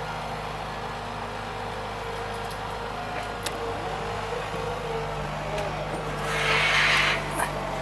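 Forestry harvester's diesel engine running steadily as the machine drives and moves its boom. About six seconds in, a loud hissing rush lasts about a second.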